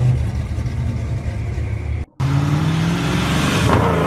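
Classic American muscle car engine with a low, steady rumble as the car pulls away. After a sudden cut about two seconds in, a second muscle car's engine accelerates past, its pitch rising near the end.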